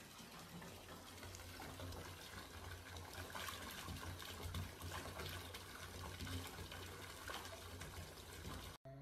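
Bathtub tap running, a steady rush of water pouring into a partly filled tub with a low rumble underneath. It cuts off suddenly near the end.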